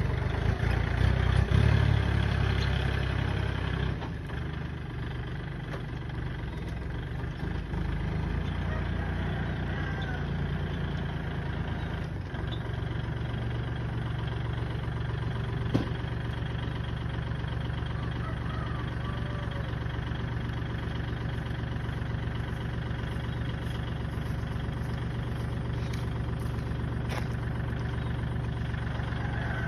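Tractor engine running, louder for the first few seconds, then settling to a steady, even idle.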